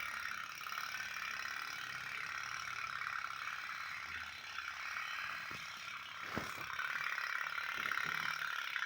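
Toy steam boat (pop-pop boat) running with a steady, rapid rattling putter, plus a couple of short knocks a little past the middle.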